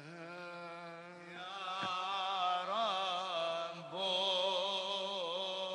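Coptic Orthodox liturgical chant: men's voices singing a slow, ornamented melody over a steady low held note, swelling louder about a second and a half in.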